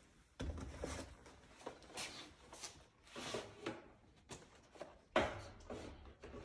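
Boxed vending packs being slid by hand into a vending machine's dispensing column: a series of irregular light knocks and scrapes as the boxes go in and settle, the firmest about half a second in and again near the end.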